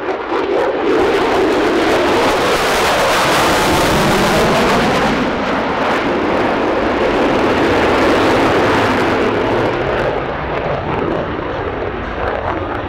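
F-22 Raptor's twin Pratt & Whitney F119 turbofan engines in afterburner as the jet makes a pass. The loud jet noise swells about a second in and eases off near the end.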